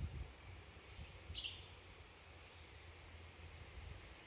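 Faint rainforest ambience: a steady high insect hiss over a low rumble, with one short high chirp from a small animal about a second and a half in. A brief soft low thump comes right at the start.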